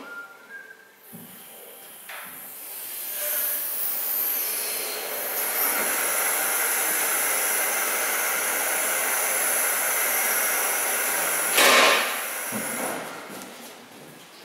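Two-post hydraulic vehicle lift lowering a pickup truck: a steady hiss of fluid bleeding back through the lowering valve for about ten seconds, with one loud clunk near the end.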